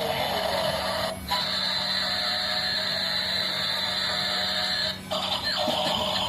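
A steady high electronic tone from a toy's built-in sound effect, broken by short gaps about a second in and near the end.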